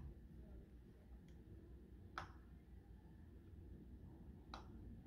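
Near silence, with three faint, short clicks as a plastic LOL Surprise toy ball is handled.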